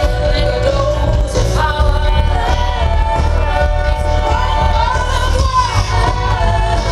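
Live pop music played loud through a festival stage's loudspeakers: a woman singing over a heavy, steady bass.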